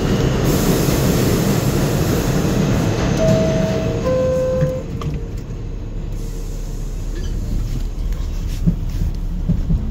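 Inside a New York City subway car: a loud steady rumble and hiss, then the two-note falling door chime about three to four seconds in, after which the car goes quieter as the doors shut. Just before the end a rising whine begins as the train starts to pull away.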